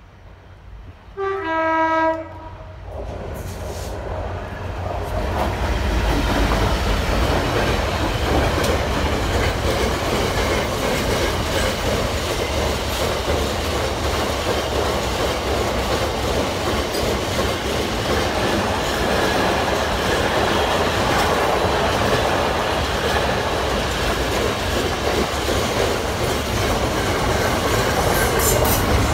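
A freight locomotive's two-tone horn sounds about a second in, a higher note then a lower one. Then an intermodal container train passes close by, its sound building over a few seconds into a steady loud rumble and clatter of the container wagons on the rails.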